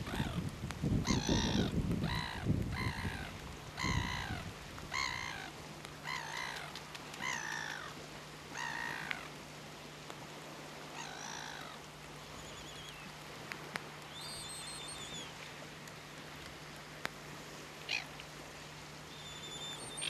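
Caspian terns giving a series of harsh calls, about one every half second to second. The calls thin out and stop after about nine seconds, and a few faint high chirps follow later.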